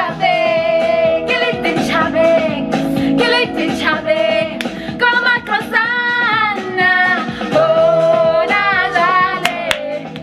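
Music: a song with sung vocals.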